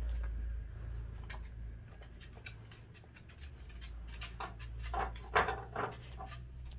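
A dachshund chewing and crunching its food: scattered sharp clicks and wet mouth sounds, with a louder cluster of chewing noises about five seconds in. A steady low hum runs underneath.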